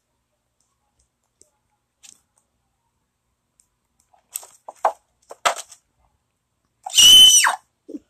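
Cardboard Happy Meal box and its packaging being handled: a few short rustles and knocks, then a loud high-pitched squeal lasting under a second that drops in pitch at its end.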